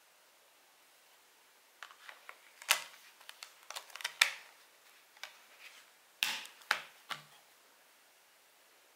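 Sharp plastic clicks and snaps of a Blu-ray case being handled: discs pressed onto and pulled off the case's centre hub. The clicks start about two seconds in, come in scattered groups with the loudest snaps near three, four and six to seven seconds, and stop about seven seconds in.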